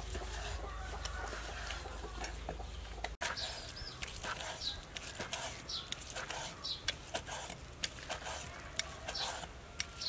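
Chickens clucking, with short, high, falling chirps repeated every second or so.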